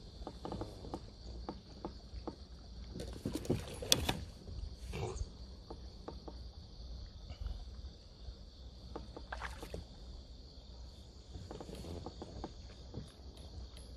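Scattered small knocks and clatter of gear on a belly boat, its aluminium oars and inflatable pontoons, loudest a few seconds in, over a steady high insect drone.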